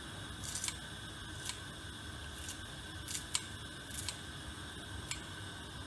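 Kitchen scissors snipping fresh coriander sprigs, about eight short crisp snips at uneven intervals.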